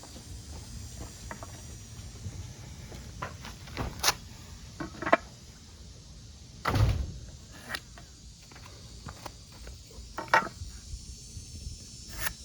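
2x4 lumber being handled and set down on a layout: scattered wooden knocks and taps, with one heavier thump about seven seconds in.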